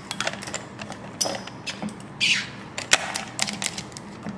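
Ice and the metal of a stainless steel insulated water bottle clinking and knocking as the bottle is handled and its lid is screwed on, with a brief hiss a little after two seconds in.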